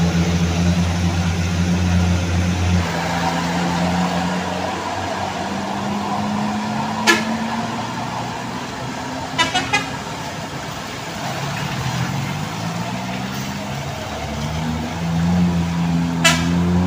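Truck and motorcycle engines running and revving as the vehicles pull through the bend, with short horn toots: one about seven seconds in, three quick ones a couple of seconds later, and one near the end.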